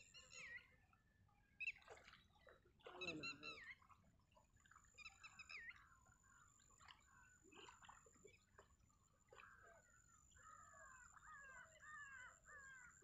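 Faint crow caws a few times, then a run of short, quick repeated bird calls near the end, over a faint steady high whine.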